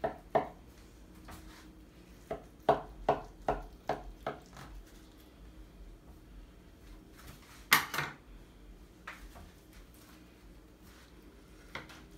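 Knife cutting through baked spaghetti in a disposable aluminum foil pan, the blade striking the foil in a run of sharp taps roughly two to five seconds in. A single louder metal clatter of utensil against the pan comes about two-thirds of the way through.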